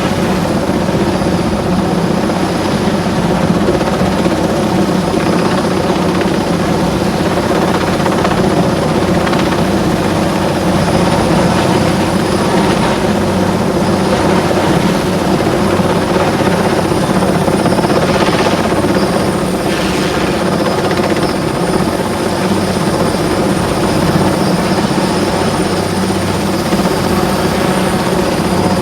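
Helicopter rotor and engine running steadily and loud at close range, heard as a constant drone of many evenly spaced low tones with a thin steady high whine above.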